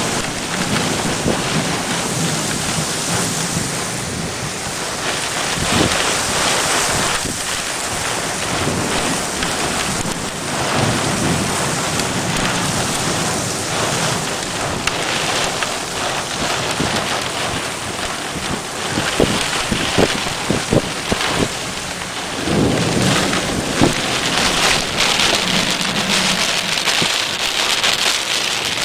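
Heavy rain pouring down in a thunderstorm, with sharp drops ticking close by and thunder rumbling low about two-thirds of the way through.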